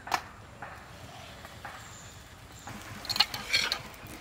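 A metal spatula tapping and scraping on an iron tawa while a paratha is flipped and cooked: a sharp click just after the start, then a short run of clicks and clatter about three seconds in.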